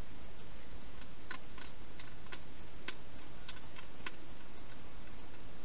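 Wild hedgehog feeding at bowls inside a plastic feeding box: a run of about a dozen small, sharp, irregular clicks and taps, starting about a second in and stopping about a second and a half before the end, over a steady hiss.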